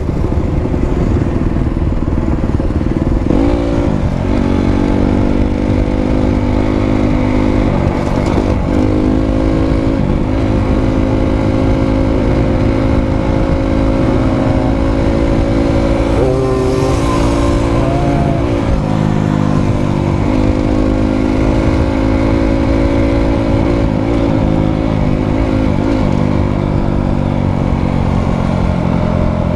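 Dirt bike engine running hard at speed, a steady note with brief dips and bends in pitch every few seconds as the throttle is eased and reapplied.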